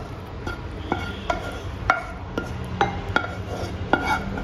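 A spatula scrapes thick batter out of a non-stick pan into a glass bowl, with light clinks, about two a second, as the spatula and pan knock against the bowl's rim.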